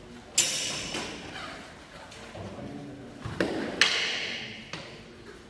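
Synthetic messer blades clacking together in sparring: a sharp clack about half a second in, a lighter one at a second, then a duller thump and another loud clack a little under four seconds in. Each one rings out in the echo of a large hall.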